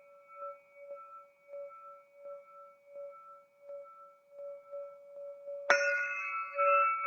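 Crystal singing pyramid ringing with steady, pulsing tones and faint ticks about twice a second from the striker. Near the end it is struck hard, and a brighter, louder ring opens out.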